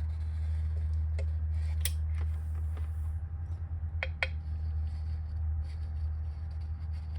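A few light clicks and taps, two of them close together about four seconds in, from handling a silicone tube on a metal electric-scooter hub-motor cover while a silicone bead is run around it. A steady low hum continues underneath.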